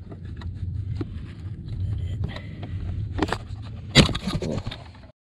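A car running, a steady low rumble, with scattered light clicks and one sharp knock about four seconds in.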